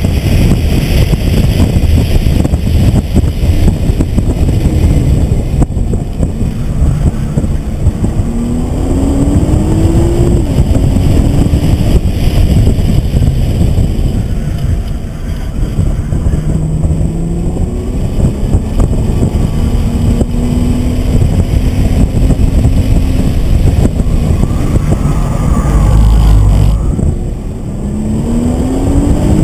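Nissan GT-R's twin-turbo V6 heard from inside the cabin under hard track driving, its pitch rising several times as it pulls through the gears and breaking off at each shift, over steady road and wind noise. A heavy low thump comes near the end.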